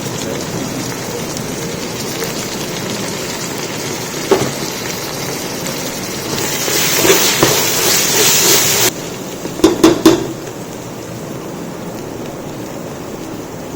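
Onions, ginger-garlic paste and mint sizzling in oil in a large cooking pot, the sizzle swelling for a couple of seconds past the middle as it is stirred. A spoon knocks against the pot about four seconds in and twice near ten seconds.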